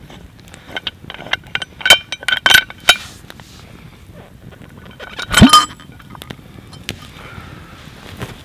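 Metal clinks and clanks from the clamp and lid of an Afghan pressure cooker as it is unscrewed and opened. A cluster of ringing clinks comes about two to three seconds in, and one loud clank comes about five and a half seconds in.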